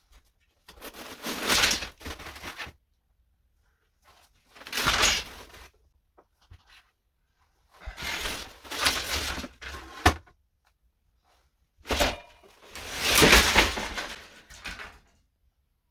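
Interior demolition: materials being pulled out and dropped, heard as four separate noisy bursts of a second or two each, with a sharp crack partway through.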